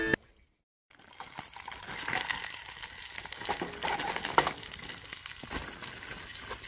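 Food cooking in a pan: a crackly sizzle with a few sharp clicks, starting about a second in after a brief silence.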